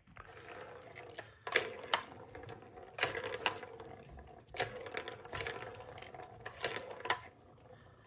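Plastic balls rolling around the track of a three-tier cat ball-track toy as a cat bats at them: a steady rolling rattle, with a sharp clack each time a ball is knocked, about seven times.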